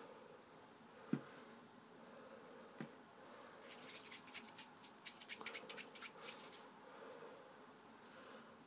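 Hands working play dough on a wooden table: a soft knock about a second in, then a quick irregular run of faint sticky crackles and clicks for about three seconds as the dough is pressed and pulled.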